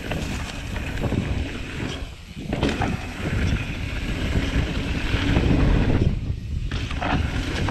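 Wind rushing over the action-camera microphone and mountain bike tyres rolling on a dry dirt trail, with a few knocks and rattles from the bike over bumps.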